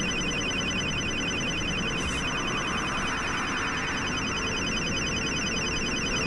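Beltronics STI Driver radar detector sounding a rapid, continuous beeping alert, warning of a police laser speed gun, over steady tyre and road noise inside the moving car.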